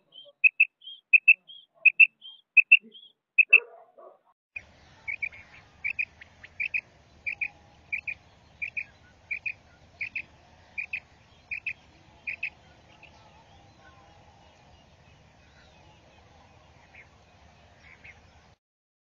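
Female quail (batair) calling: a regular series of short doubled chirps, about one and a half a second. About four seconds in, the recording changes and a faint low hum runs under the calls, which grow sparse and faint after about twelve seconds.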